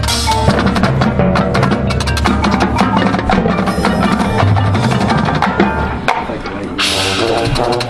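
Marching band playing, with the drumline and mallet percussion striking rapid, even notes over held low brass chords. About seven seconds in a bright, hissing burst comes in across the top of the sound.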